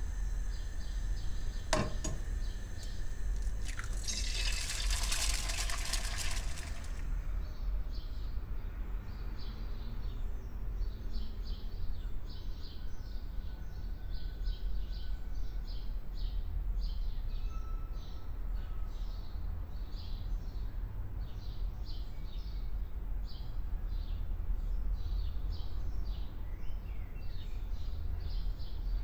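A click, then about three seconds of sizzling from a frying pan of hot oil on a gas hob. After that comes a steady ambience of rapid, repeated chirping over a low hum.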